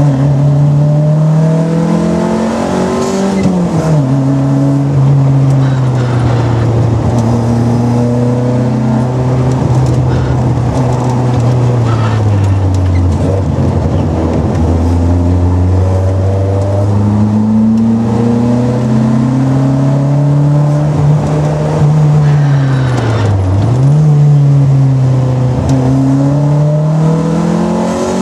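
Simca 1000 Rallye's rear-mounted four-cylinder engine heard from inside the cabin, driven hard through the gears. Its pitch climbs and falls with the revs, with quick drops and recoveries at gear changes about three seconds in, a little after twenty-three seconds and near the end.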